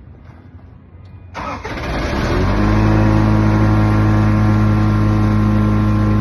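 Ditch Witch FX60 vacuum excavator's engine cranking and catching about a second in, then settling into a steady, loud run.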